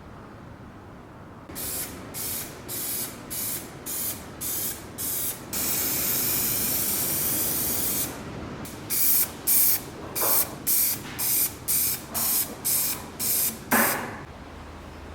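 Paint spraying in a series of short hissing bursts, about two a second. In the middle comes one longer spray of two to three seconds, then more quick bursts.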